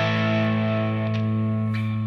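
G&L ASAT Classic Tribute single-coil electric guitar through an amp's crunch channel: one distorted chord held and left ringing, its brightness fading as it sustains.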